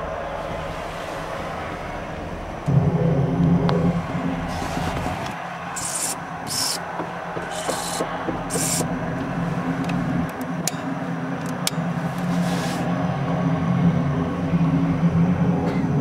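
A steady low mechanical hum that gets louder about three seconds in, with several short bursts of hiss and a few sharp clicks over it.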